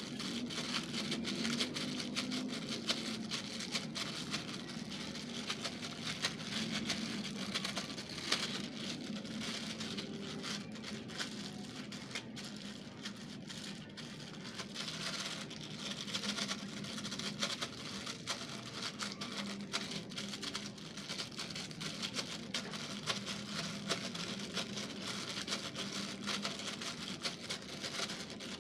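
Thin plastic bag crinkling and rustling without a break as bait dough inside it is kneaded by hand, working the essence evenly into the base mix.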